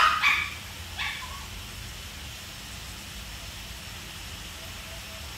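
A dog barking: the last barks of a short run in the first half second, then one more bark about a second in.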